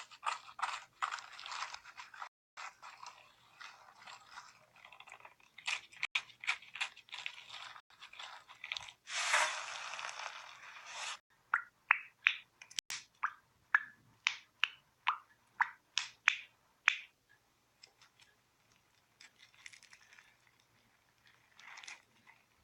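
Slime being squeezed and pressed by hand, making wet crackling and squishing, with a steady hiss near the middle. This is followed by a run of sharp pops, about two a second, that fade to faint crackles near the end.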